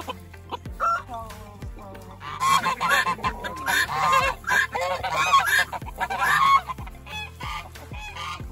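Geese in a mixed poultry flock honking: a few scattered calls, then from about two seconds in a loud burst of many overlapping honks that thins out after six or seven seconds.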